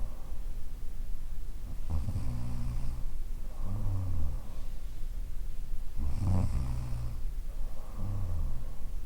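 A woman in her thirties snoring in her sleep, one snore about every two seconds; the loudest comes a little past the middle.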